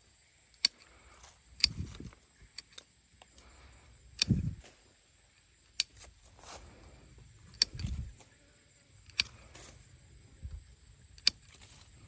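Hand pruning shears snipping small durian twigs: about eight sharp clicks, spaced a second or two apart. Between the snips come a few low, dull thumps from the branches and leaves being handled.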